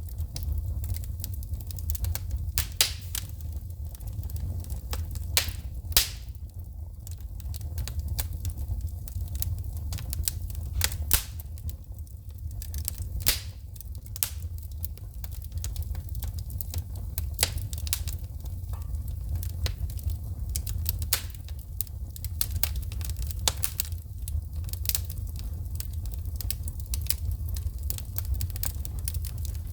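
Wood fire in a fireplace crackling, with sharp irregular pops and snaps of shooting sparks over a steady low rumble.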